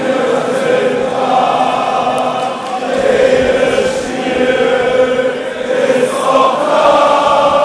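A large crowd of football supporters chanting together in the stand, many voices singing long held phrases a few seconds each, with brief dips between phrases.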